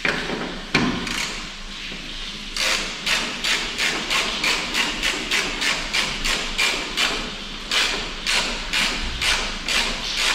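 Hand ratchet tightening a headlight mounting bolt: a couple of sharp knocks at the start, then a steady run of ratchet clicks, about four a second, from a few seconds in.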